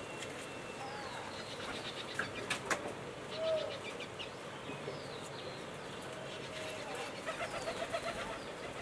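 Birds calling in the background: short chirps and a cooing note about three and a half seconds in, with a quick run of notes near the end. A couple of light clicks from handling come between about two and three seconds in.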